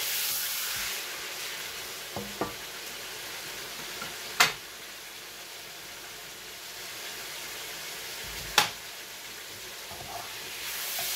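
Chicken pieces frying in hot oil in a dark frying pan with a steady sizzle, stirred with a spatula. Two sharp knocks about four seconds apart stand out as the loudest sounds.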